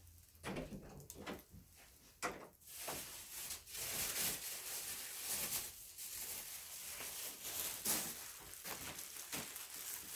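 Off-camera rummaging through stored shopping items: scattered knocks and clicks, then continuing rustling from about three seconds in, heard in a small room.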